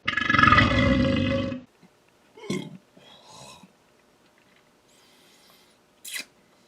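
A man's long, loud belch of about a second and a half, right after drinking a pale ale down quickly. A few short faint sounds follow.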